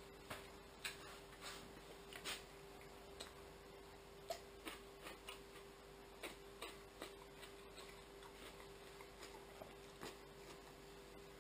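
Chewing and mouth clicks from a man eating a pita with hummus and kebab: soft, irregular smacks and clicks, the loudest about four seconds in, over a faint steady hum.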